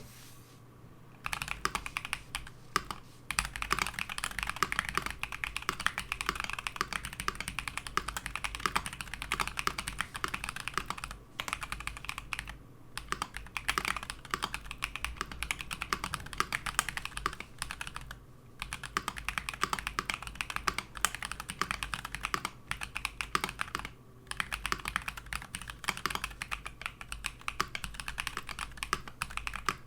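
Mechanical keyboard with Harimau tactile switches on long springs being typed on continuously, a dense run of keystrokes that starts about a second in and stops briefly several times.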